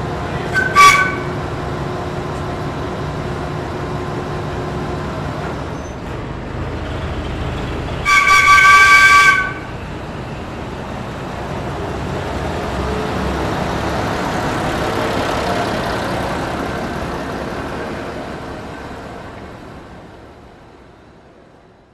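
A train sounding its horn and passing. There are two short toots just under a second in and a longer blast of about a second and a half around eight seconds in, each several notes at once. Then the rumble of the train swells and fades away to nothing near the end.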